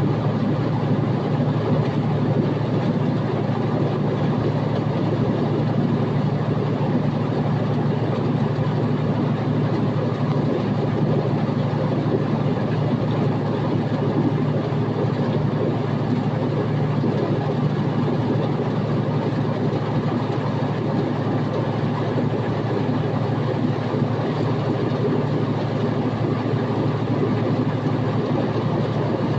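Steady drone of a Freightliner Coronado SD122 semi truck's Detroit DD15 inline-six diesel running, a low even hum with no change in pitch.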